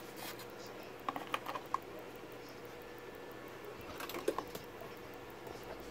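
A few light clicks and taps from handling a TV power-supply circuit board and its parts: a quick cluster of about four clicks about a second in and a few more about four seconds in, over a faint steady hum.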